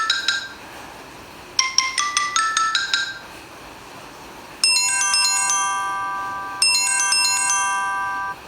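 Samsung Galaxy J2 Pro ringtones playing through the phone's speaker. A quick rising run of about eight notes is followed by a held chord struck twice, each time fading over about two seconds.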